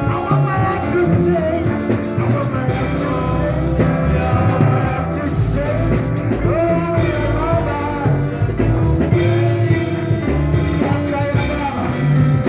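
A song with a band: a singing voice over guitar, bass and drums, played steadily.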